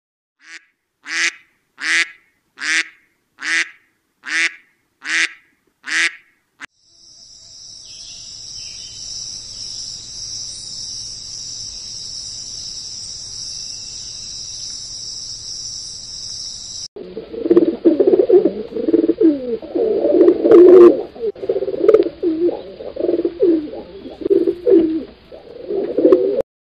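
A domestic duck quacking eight times in an even rhythm. Then a steady, high-pitched buzz of honeybees on the comb. From about 17 seconds in, pigeons cooing loudly and busily.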